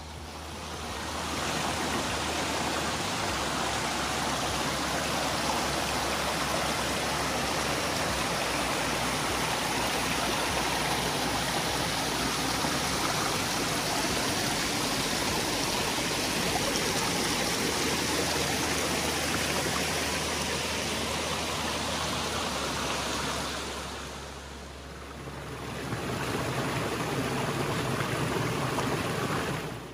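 Rushing water of a stream, a steady even rush. It dips briefly late on, returns, then cuts off abruptly.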